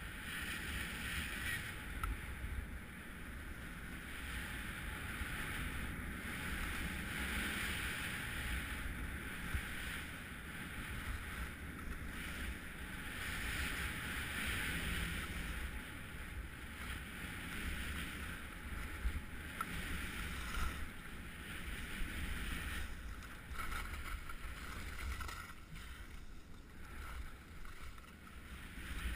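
Edges hissing and scraping over packed, tracked snow on a fast downhill ski run. The hiss swells and fades every few seconds over a low wind rumble on the microphone.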